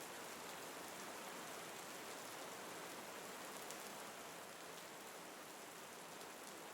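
Steady rain falling, an even hiss of drops with faint patter.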